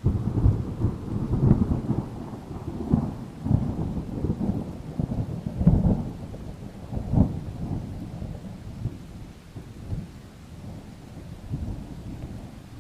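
Thunder over rain: a sudden clap, then a long rolling rumble with several louder peaks that gradually fades.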